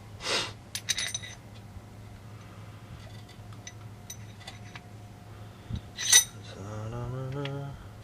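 Metal sway bar end link hardware (washers, bushings, nut) clinking and tapping as the parts are handled and fitted: a few ringing clinks around the first second, one sharp click about six seconds in, then a short low hum.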